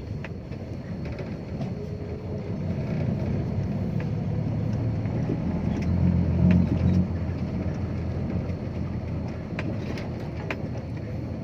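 Dump truck diesel engine running on the move, a steady low rumble that swells louder about six to seven seconds in, with light rattling clicks.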